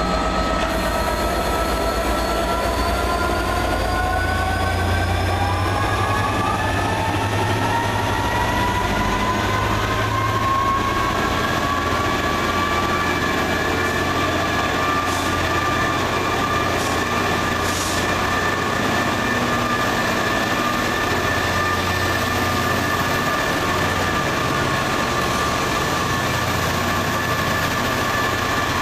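Class 67 diesel locomotive's turbocharged EMD 710 V12 two-stroke engine working under power: a whine climbs in pitch over the first dozen seconds and then holds steady, above a low engine rumble.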